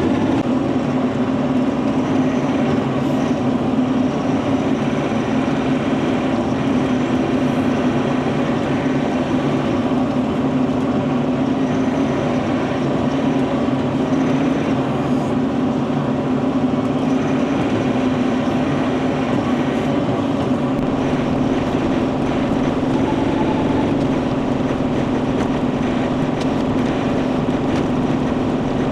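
Bobcat E42 mini excavator's diesel engine running steadily under work, a constant low drone.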